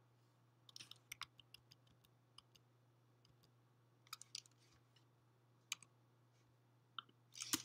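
Faint, scattered computer keyboard keystrokes: a quick run of clicks about a second in, a few more around four seconds, and single taps in between, over a low steady electrical hum.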